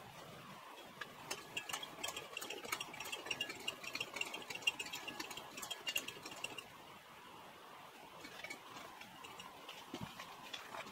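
Hand pump of a vintage Coleman 152 gas lantern being worked to pressurise the fuel tank: a quick run of squeaky clicks for about six seconds, then it goes quieter.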